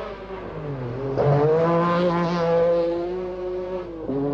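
MG Metro 6R4 rally car's V6 engine at high revs on a gravel stage. The revs climb about a second in, hold high, and dip sharply near the end as the driver lifts or changes gear.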